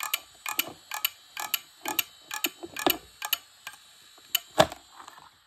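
An opened Western Digital Caviar hard drive clicking at about two a second as its head actuator arm repeatedly swings and recalibrates over the platters, with one louder knock near the end. It is failing to work properly, the classic click of a drive that cannot read its disks. A faint steady high whine runs under the clicks, and both stop near the end.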